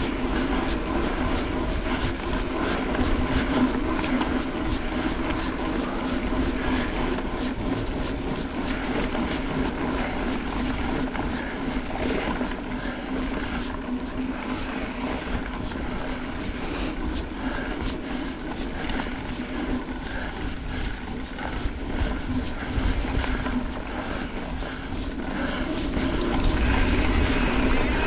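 Mountain bike being ridden along a dirt trail: a steady hum with frequent clicks and rattles from the bike over bumps, and wind rumble growing louder near the end.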